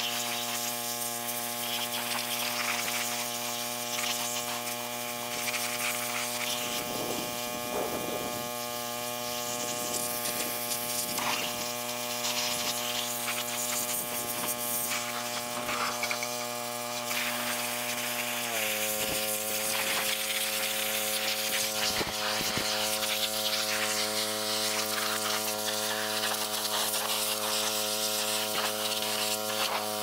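Pressure washer running, a steady buzzing motor drone with the hiss of the spray washing hay and chaff off a hay baler's knotter and bale chamber. The drone drops a step in pitch about two-thirds of the way through.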